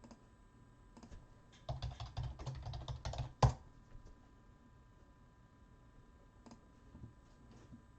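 Typing on a computer keyboard: a quick run of keystrokes ending in one louder key tap about three and a half seconds in, then a few scattered clicks.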